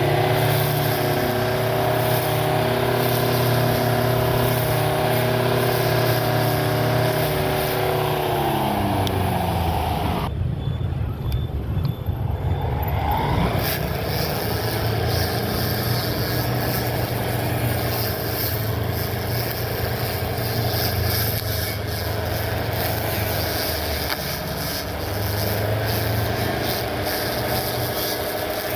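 Electric motor of a homemade battery-powered lawn mower running steadily, winding down about eight seconds in, then running again at a steady speed.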